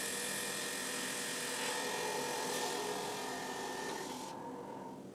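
Spindle of a CNC-converted Precision Matthews PM-30MV mill running at about 2,500 RPM, a steady whine with a few held tones, while a number 7 drill plunges through a brass bar. The sound dies away near the end.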